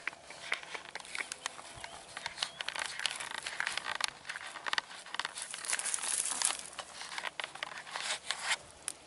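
Dry grass and stalks rustling and crackling as someone walks through them, with many small sharp crackles, busiest in the middle.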